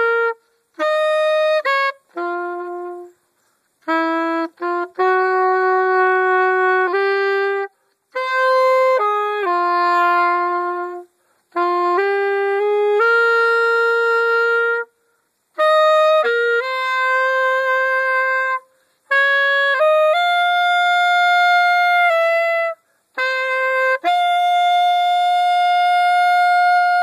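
Saxophone played solo and unaccompanied: a melody in short phrases with brief pauses between them, ending on a long held note.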